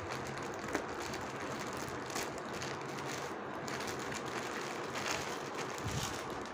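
Plastic courier mailer rustling and crinkling as it is pulled open by hand, a few faint crackles over a steady background hiss.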